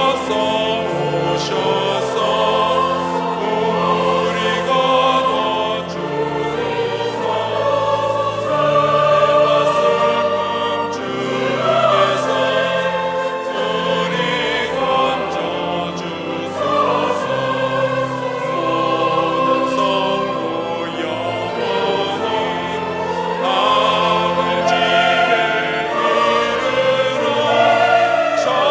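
Choir singing with instrumental accompaniment in long held notes.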